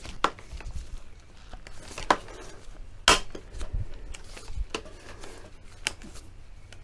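Hand pop-rivet gun being squeezed to set a 5x19mm blind rivet into a car bumper, giving a few separate sharp clicks and clacks, the loudest about three seconds in.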